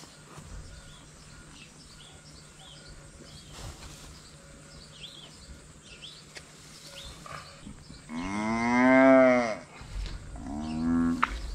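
Black-and-white dairy cow in labour bellowing as her calf is delivered: one long, loud moo that rises and falls, then a shorter moo about a second later.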